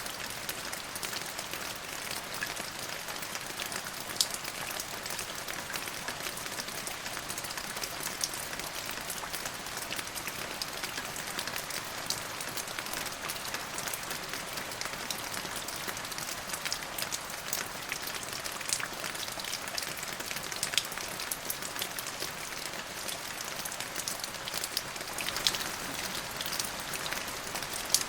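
Steady rain falling on a hard surface: a continuous high hiss with many scattered drop ticks, a few of them sharper and louder.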